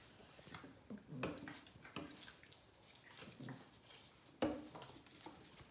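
Puppies playing on a hard floor: a few short, low vocal sounds among scattered light knocks and clicks, the sharpest knock about four and a half seconds in.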